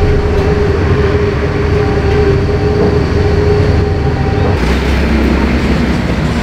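Loud, steady mechanical rumble with a steady hum tone that stops about four and a half seconds in, leaving a deeper rumble.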